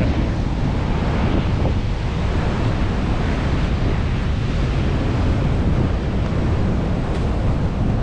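Strong typhoon wind buffeting the microphone in a steady low rumble, over the rush of heavy surf breaking on the beach.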